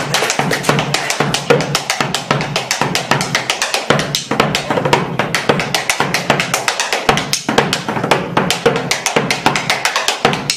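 Bombo legüero, the Argentine hide-headed frame drum, played fast with sticks in a steady rapid rhythm of sharp strikes, some with the hard click of stick on wooden rim.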